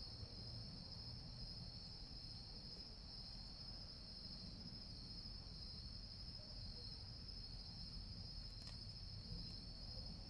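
Faint, steady chorus of crickets, one unbroken high-pitched trill.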